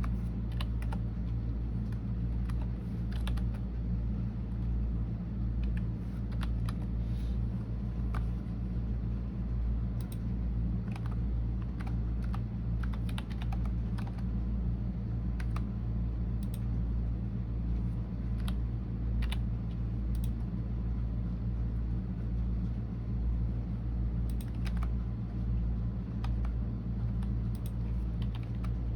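Computer keyboard being typed on: irregular keystrokes, sometimes single and sometimes in short runs, over a steady low rumble.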